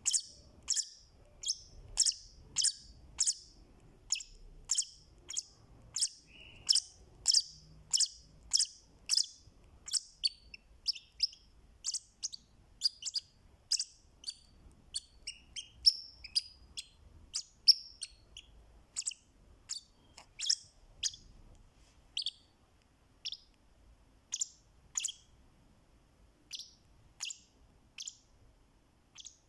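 Fischer's lovebird giving repeated short, sharp, high-pitched chirps, about two a second at first, then more irregular and sparser toward the end.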